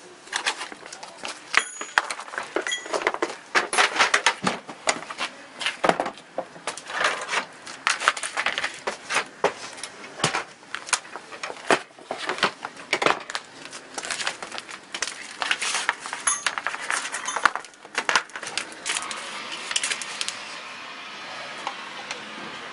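Handling noise as Makita rotary hammers are lifted out of their plastic carrying cases and set down: irregular clicks, knocks and clatter of hard plastic, with cords being moved. The clatter dies away near the end.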